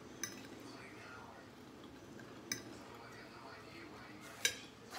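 A fork clinking against a dinner plate three times, a couple of seconds apart, while food is picked up from the plate.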